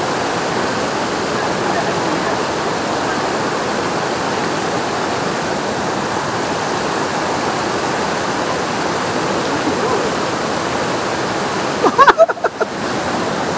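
River rapids rushing steadily over boulders. About twelve seconds in, a short loud vocal outburst comes from close to the microphone.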